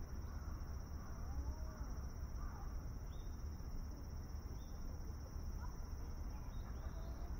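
Outdoor pond-side ambience: a steady high insect drone with a few faint, short bird chirps scattered through it, over a constant low rumble.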